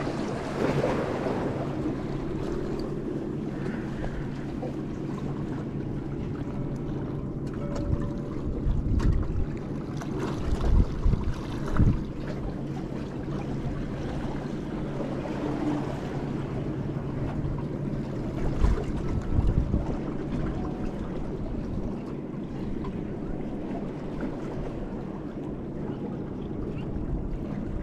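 Wind buffeting the microphone, gusting louder a few times, over water washing against the jetty rocks and a faint steady low hum.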